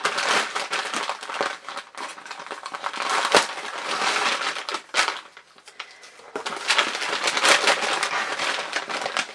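Packaging crinkling and rustling as a wrapped bath product is opened by hand, with a short lull a little past halfway.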